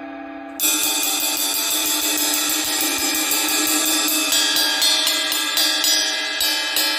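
Omete 20-inch Mercury Ride cymbal ringing, then struck in a quick steady ride pattern from about half a second in, at roughly five or six strokes a second, with a few louder accents, over a shimmering sustained wash.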